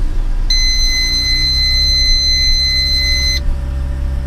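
Mazda RX-8's twin-rotor rotary engine idling just after being started, with a steady high-pitched electronic beep sounding for about three seconds from half a second in.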